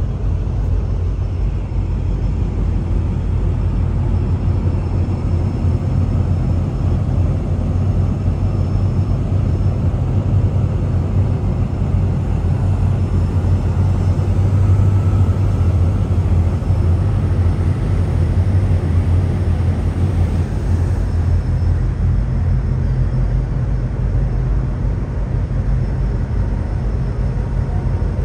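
Steady low rumble on board a large container ship under way, with a few steady low hums in it and no sharp events.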